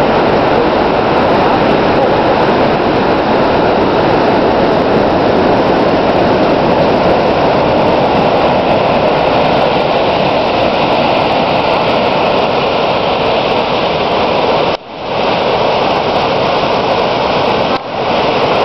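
Waterfall's steady, heavy rush of falling water churning into its plunge pool. The sound drops out briefly twice near the end.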